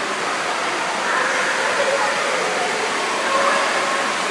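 Steady rush of running water from water-park slides and spray features, with faint distant voices under it.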